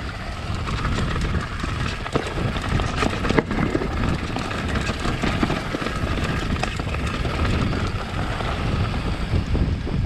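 Mountain bike rolling down a dirt and rock trail: a steady rumble of tyres over the ground, with many small knocks and rattles from the bike, and wind buffeting the camera's microphone.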